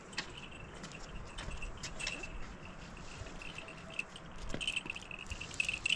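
Outdoor ambience: a steady, pulsing high-pitched chirring with scattered light clicks and rattles.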